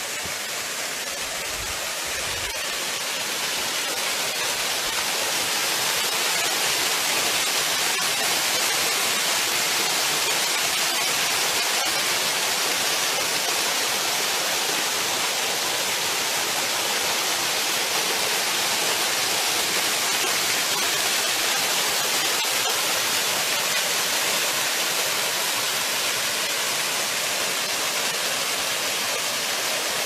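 A small waterfall pouring down a mossy rock face: a steady rush of falling water. It grows louder over the first few seconds, then holds even.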